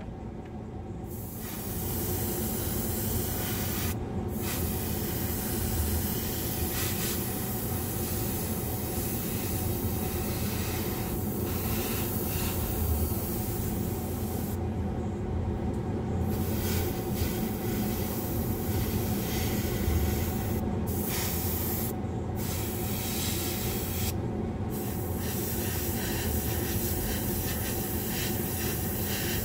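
Gravity-feed airbrush spraying paint, a steady hiss of air and paint that stops for a moment several times as the trigger is released, over a constant low machine hum.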